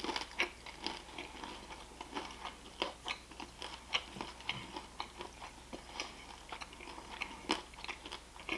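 A person chewing food close to the microphone: irregular small crunches and wet mouth clicks, several a second.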